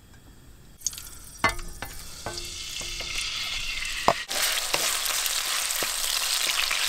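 Raw chicken frying in oil in a non-stick pan on a portable gas stove. The oil starts to sizzle as it heats, with a few knocks of utensils on the pan; about four seconds in the chicken pieces go into the hot oil and the sizzling jumps much louder as they are stirred with a wooden spatula.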